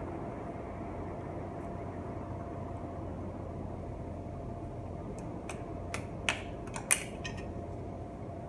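A handful of sharp metal clicks and clinks from a bicycle crankset being handled and fitted at the frame's bottom bracket. They come in a cluster over about two seconds, the loudest near the end, over a steady background hum.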